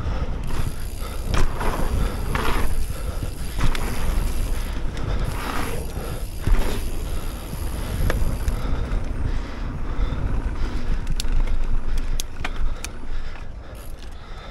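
Mountain bike being ridden over dirt: tyres rolling and scuffing on the ground with the bike rattling and clicking, over a heavy rumble of wind on the microphone. It eases off in the last couple of seconds.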